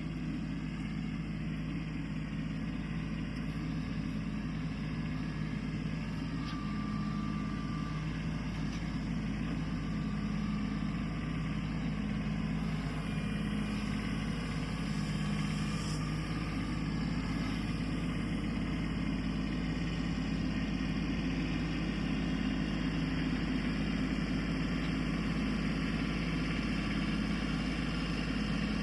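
Kubota compact tractor's diesel engine running steadily at a low hum.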